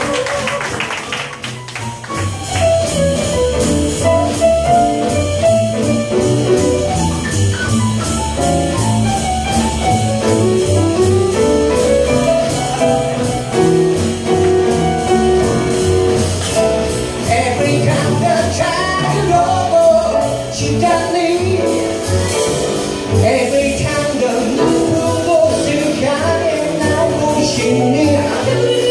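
Live jazz band with grand piano, upright double bass and drum kit playing a groove while a male vocalist sings over it through a microphone.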